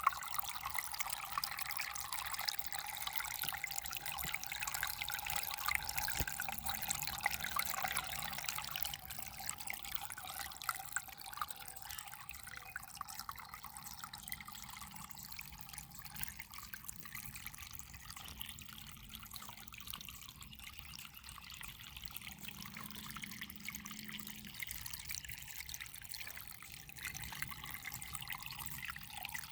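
Water trickling gently and steadily, a little softer after about nine seconds.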